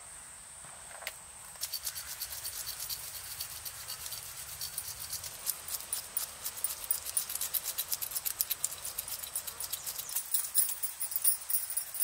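A knife scraping the scales off a freshwater fish: rapid, scratchy strokes, several a second, starting about one and a half seconds in and growing louder toward the end.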